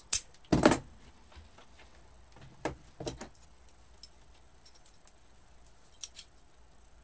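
Metal scissors snipping and clicking while wired ribbon is handled: two sharp snips in the first second, then softer clicks and rustles around three seconds and again near six seconds in.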